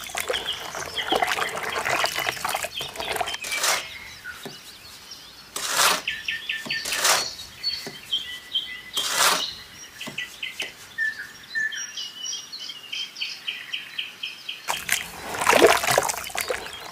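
Small birds chirping in quick runs of short high notes, broken by several brief bursts of noise and a louder noisy stretch near the end.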